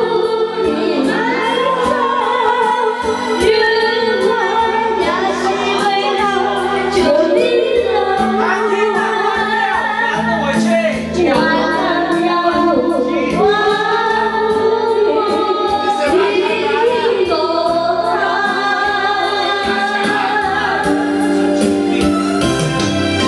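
A woman singing karaoke into a handheld microphone over a backing track.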